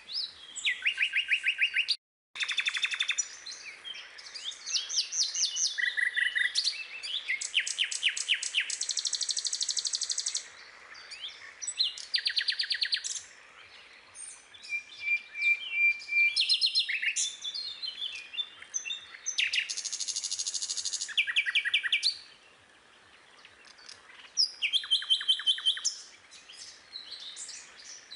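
Songbirds chirping and trilling in rapid repeated note series, several birds overlapping, with a brief break in the sound about two seconds in.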